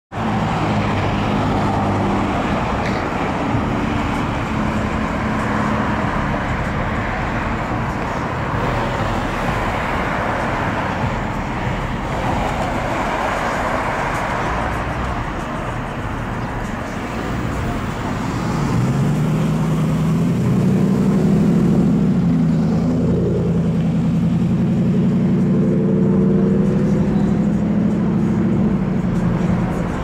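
Steady road traffic noise of cars and trucks passing through a busy intersection. About two-thirds of the way through, a low engine note rises and then holds and grows louder as vehicles pull away and pass close by.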